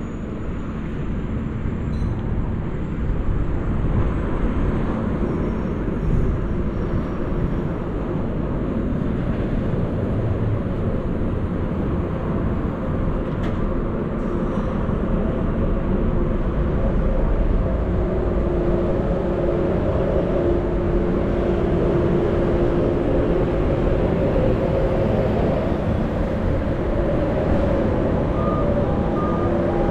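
Steady road-traffic noise from a busy city road, with trucks and buses running past. In the second half a heavy vehicle's engine hum stands out over the rumble.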